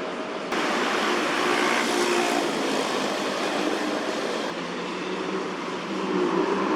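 Steady city traffic noise, getting louder and brighter about half a second in and easing near the end, with a low engine hum coming up at the end.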